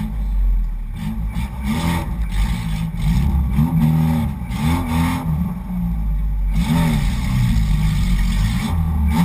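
Off-road 4x4's engine revving hard under load, its pitch rising and falling again and again every second or so, as it claws its way up out of a deep mud hole.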